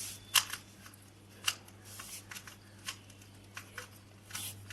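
Plastic 2x2 Rubik's cube being twisted by hand, its layers turning with irregular sharp clicks, the loudest near the start.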